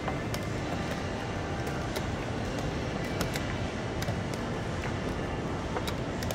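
Sharp clicks of wooden chess pieces being set down and chess clock buttons being pressed during a blitz game, every second or so, over a steady background noise.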